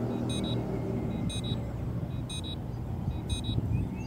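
Short high electronic beeps in quick pairs, repeating about once a second, over a steady low rumble.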